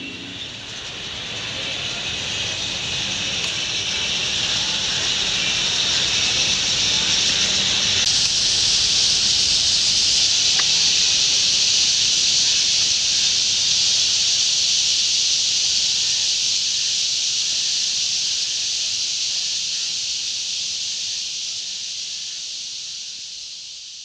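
A large roosting flock of starlings chattering in trees, countless calls blending into a dense, steady hiss. It fades in over the first few seconds and fades out near the end.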